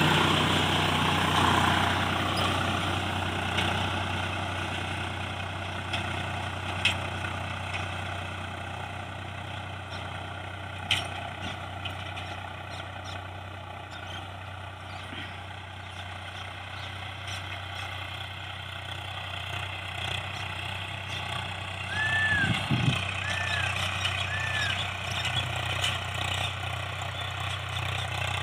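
Tractor engine running steadily as the tractor is driven, growing fainter over the first half as it moves away and then a little louder again. Three short high chirps sound near the end.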